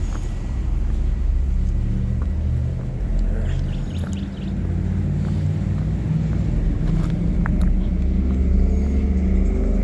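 A car running, with a steady low rumble of engine and road noise.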